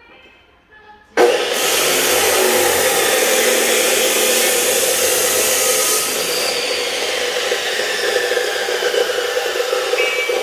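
Faint music, then about a second in a loud power tool starts abruptly and runs steadily with a harsh hiss and a whir.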